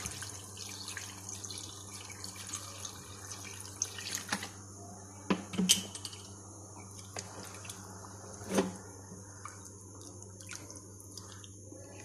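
Water poured into a hot pan of fish curry masala, splashing and sizzling. After that the curry bubbles faintly, with a few sharp knocks.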